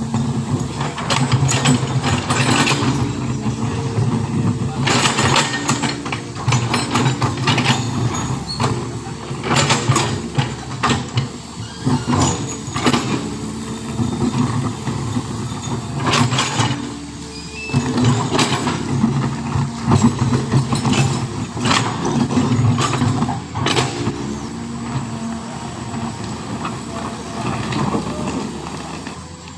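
Heavy diesel engine running at varying load, with many short, sharp noises breaking in over it.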